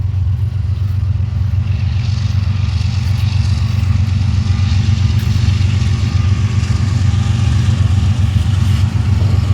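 Diesel freight locomotive pulling in slowly, its engine a steady low rumble, with rattling and wheel noise building from about a second and a half in as it comes closer.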